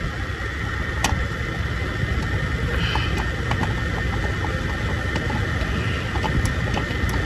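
Steady repair-shop background noise, a low rumble with a constant high whine, over a few light metallic clicks as the A/C compressor's mounting bolt is turned out by hand: one sharp click about a second in and several small ones around three seconds.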